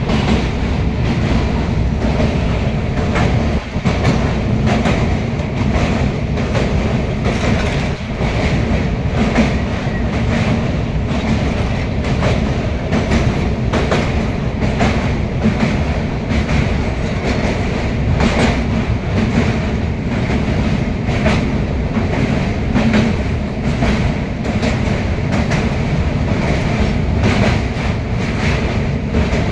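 Passenger train running across a truss bridge, heard from inside the carriage: a steady rumble of wheels on the rails with repeated clacks over the rail joints.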